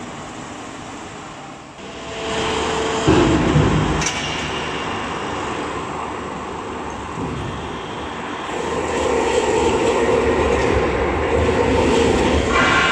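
Log debarking machine with spiked rollers running as logs are fed in by hand, with knocks of wood on the machine. The running noise grows louder about two seconds in and again about eight seconds in.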